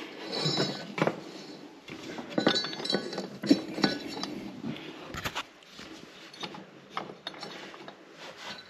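Irregular metallic clinks, knocks and rubbing as a new deck belt is worked by hand around the steel pulleys of a zero-turn mower deck. The loudest knock comes about three and a half seconds in.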